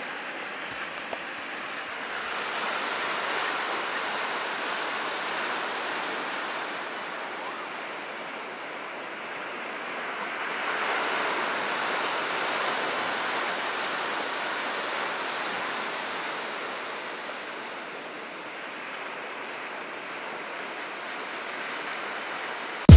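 Ocean surf washing onto a sandy beach: a steady rush of breaking waves that slowly swells and eases, twice.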